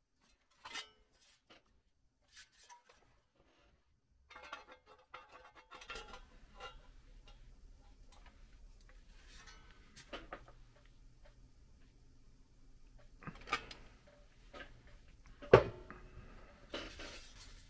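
A hand tool clicking and clanking against the pressed-steel wing of a toy airplane as its edge is worked, with a sharp metallic knock about two-thirds of the way through. A faint low steady hum runs underneath from about six seconds in.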